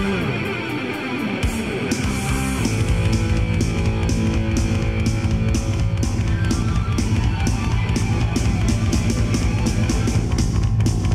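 Background rock music with guitars and a steady drum beat.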